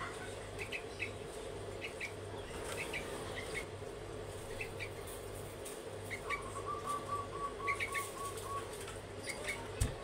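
Young sooty-headed bulbul (trucuk) giving short high chirps, mostly in pairs, repeated every second or so. About six seconds in, a run of about ten evenly spaced lower notes. A steady hum runs underneath.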